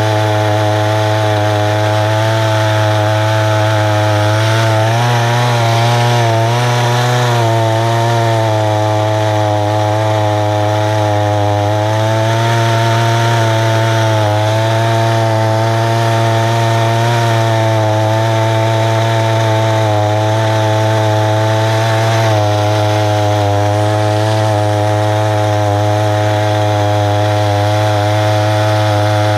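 Husqvarna 288 two-stroke chainsaw running steadily at full throttle in an Alaskan chainsaw mill, ripping lengthwise through a tulip poplar cant. The engine note holds under load, its pitch wavering slightly a few times.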